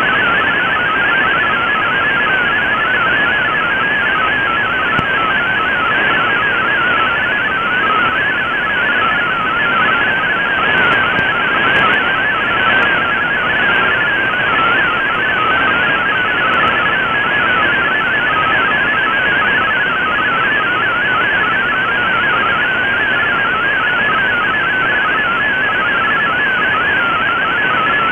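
MFSK32 digital text transmission from a shortwave broadcast, received in AM on an Icom IC-R8600: a fast, steady warble of hopping tones over constant static hiss.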